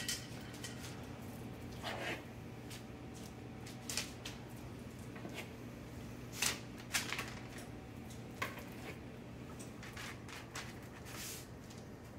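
Metal spoon scraping and tapping as sticky oat-and-pumpkin dough is scooped from a bowl and pushed off onto a parchment-lined baking sheet: scattered soft scrapes and light clicks every second or two, over a faint steady hum.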